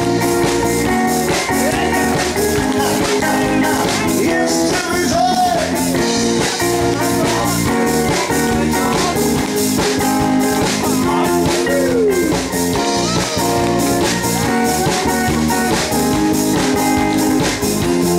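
Live rock band playing an electric guitar solo with bent, sliding notes over bass guitar, drum kit and keyboards, with a steady beat.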